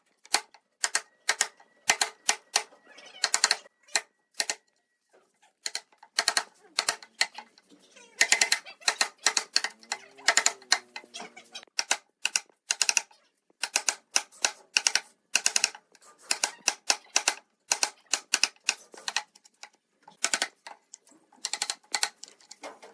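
Wood chisel chopping and paring out the waste of corner joints in a pine board: sharp, irregular knocks coming in quick clusters.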